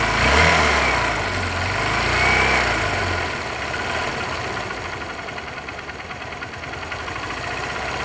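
Hero Honda motorcycle's single-cylinder four-stroke engine idling, with a fast ticking, rattling noise over the hum, a 'kit-kit, jhir-jhir' sound. The engine's sound has gone bad, and the mechanic sets out to cure it with tappet clearance and timing-chain adjuster work.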